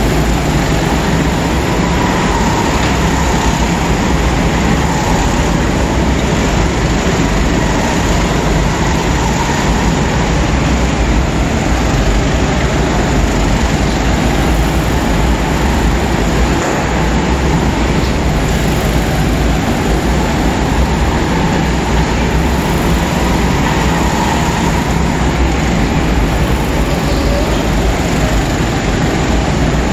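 Several go-karts racing together around an indoor track, giving a steady, unbroken drone of machinery.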